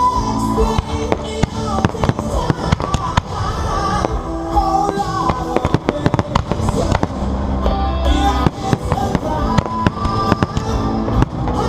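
Fireworks going off in quick succession, many sharp bangs and crackles, over loud music playing for a pyromusical display.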